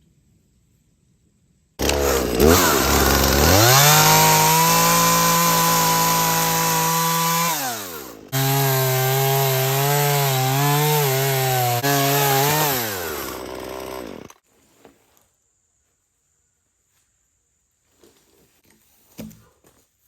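A small gas saw engine revs up sharply about two seconds in and runs at high, steady speed, then winds down. It starts again abruptly, runs with its pitch dipping and recovering, and cuts off suddenly. A few faint knocks follow near the end.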